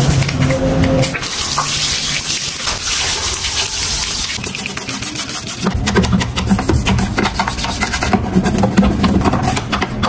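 Toothbrush bristles scrubbing wet, soapy plastic in quick back-and-forth strokes: first a washing machine's detergent-drawer part in a basin of soapy water, then, about halfway through, the machine's detergent-drawer recess.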